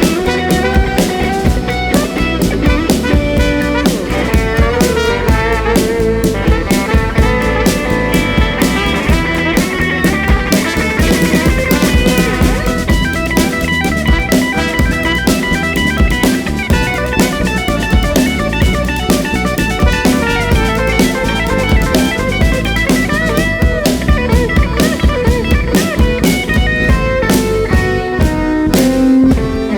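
Live rock band playing an instrumental passage without vocals: guitar over a steady drum-kit beat.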